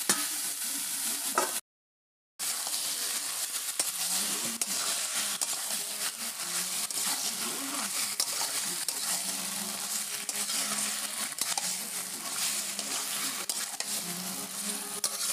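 Chicken skin and spice paste sizzling in a metal kadai while a steel spatula stirs it, scraping and clicking against the pan. The sound drops out briefly about two seconds in.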